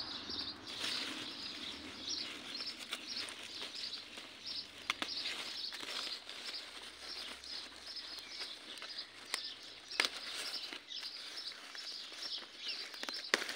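A small bird chirping over and over in short high notes, with a few sharp clicks, the loudest about five and ten seconds in.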